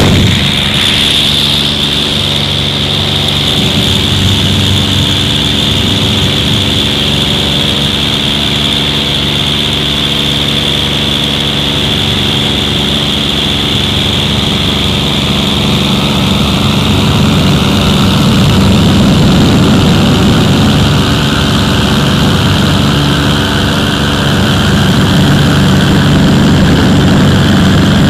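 Small high-wing propeller airplane in flight, its engine and propeller droning steadily as heard inside the cabin. The drone grows slightly louder about two-thirds of the way in, with a faint tone slowly rising in pitch.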